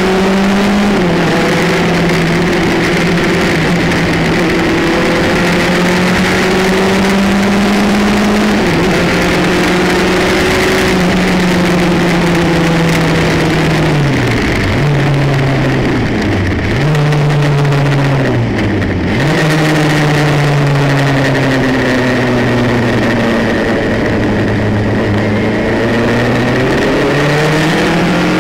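Formula Campus single-seater race car's engine at speed, heard from the open cockpit, its note rising and falling through the lap with steady wind rush over it. About halfway through, the pitch drops sharply and climbs back several times in quick succession as gears are changed.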